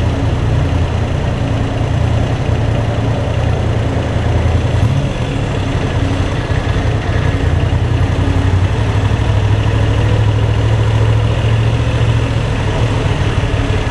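Moto Guzzi V7 III's air-cooled V-twin engine running steadily at low revs, with no revving, inside an underground parking garage.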